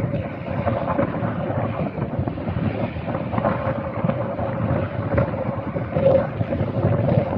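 Distant helicopter running on the ground while taxiing for take-off: a steady whine over a low rumble, with wind buffeting the microphone.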